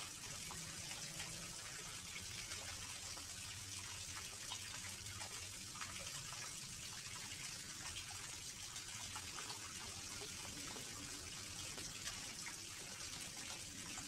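Small garden fish-pond waterfall: water pouring steadily over the rocks into the pond, with a continuous splashing trickle.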